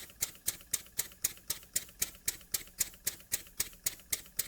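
Jowitt Major poppet-valve model steam engine running slowly and evenly on compressed air at low pressure. Its exhaust beats in short, sharp hissing puffs, about four a second.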